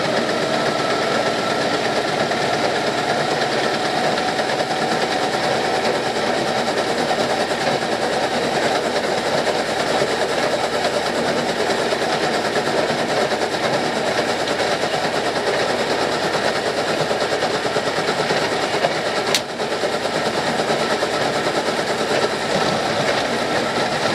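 Fairmont MT14 rail speeder running along the track, its engine, chain drive and wheels making a steady clatter with a ker-chunky noise from the rear axle, which is cracking through and failing. One sharp knock about three quarters of the way through.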